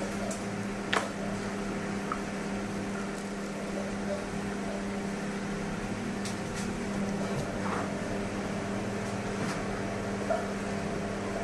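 A steady low machine hum with a few faint clicks and light knocks; the sharpest click comes about a second in.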